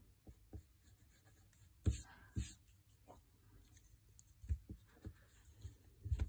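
Pencil drawing on paper: short scratchy strokes and rubs of the hand on the sheet, with a couple of louder bumps about two seconds in.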